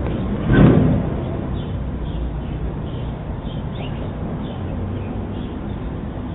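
Outdoor background noise picked up by a doorbell camera's microphone: a steady low rumble, with a brief louder rush about half a second in and faint short high chirps scattered through.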